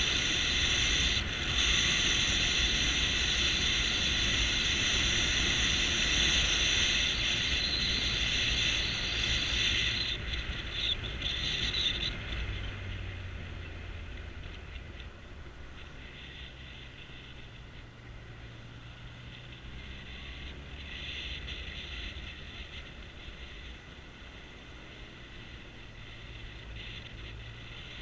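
Motorcycle riding along a road, with its engine hum and wind noise. The sound is loud for the first ten seconds or so, then eases to a quieter, steady run, and starts to rise again near the end.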